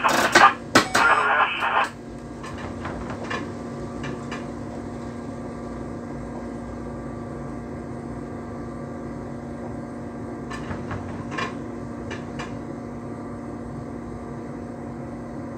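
Steady running hum inside a train's cab, with one low steady tone under it and a few faint clicks about ten to twelve seconds in. For about the first two seconds a tinny, narrow-band radio transmission sounds over it.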